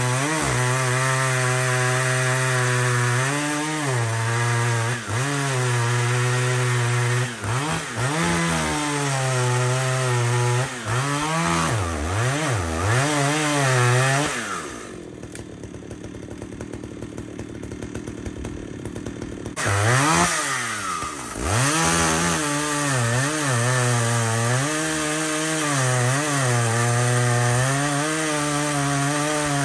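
Jonsered two-stroke chainsaw at full throttle, making a felling cut into a large tree trunk, its pitch dipping again and again as the chain loads up in the wood. About fifteen seconds in it drops to idle for some five seconds, then revs back up and cuts on.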